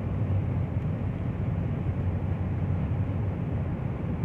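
Car on the move, a steady low rumble of engine and road noise.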